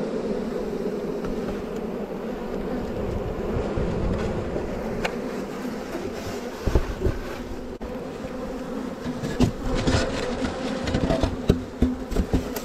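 A swarm of honeybees buzzing close around the microphone, a steady dense hum of many wings. From about three-quarters of the way through, irregular thumps and knocks sound over the hum.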